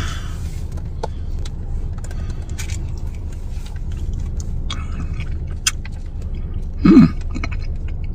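Small clicks, crinkles and scrapes of dessert packaging being handled and pried open, over a steady low rumble. A short vocal sound, like an "mm", about seven seconds in.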